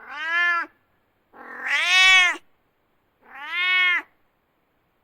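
A domestic cat meowing three times, each meow under a second long and rising then falling in pitch, about one and a half seconds apart; the middle meow is the loudest and longest.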